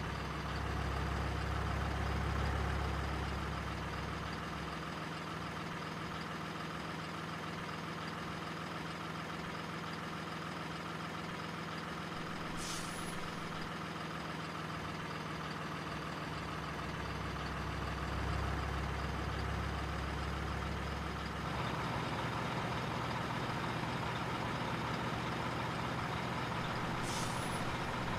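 Heavy diesel truck engine sound running steadily, with its low note shifting about three quarters of the way through. A brief high air-brake hiss comes twice, once about halfway and once near the end.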